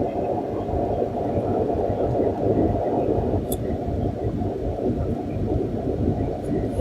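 Steady low rumbling noise with a faint constant hum.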